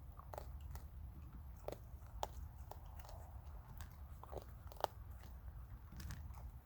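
Raccoons crunching and chewing hard dry food: irregular sharp crunches, with one sharper crunch near the middle, over a steady low hum.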